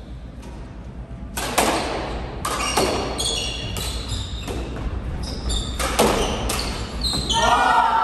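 A squash rally: a rapid, uneven series of sharp smacks as the ball is struck by racquets and hits the court walls, echoing in the enclosed court, with short high squeaks of court shoes on the hardwood floor between the shots.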